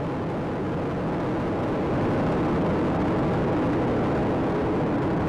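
Space Shuttle Atlantis's two solid rocket boosters and three main engines firing during ascent: a steady, low rocket noise that grows a little louder about two seconds in.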